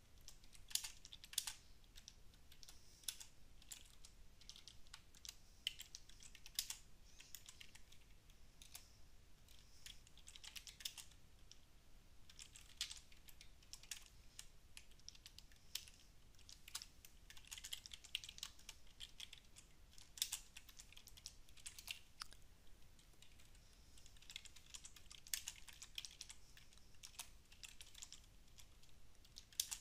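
Typing on a computer keyboard: quick runs of keystrokes in bursts, with short pauses between them.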